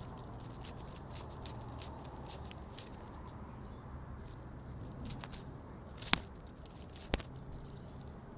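Nature ambience: a steady low hum and soft background hiss with many faint scattered crackles and ticks, and two sharp clicks about six and seven seconds in.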